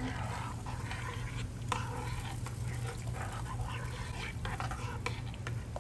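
A metal spoon stirring coconut milk into a pot of water and peas: liquid sloshing, with irregular light scrapes and taps of the spoon in the pot, over a steady low hum.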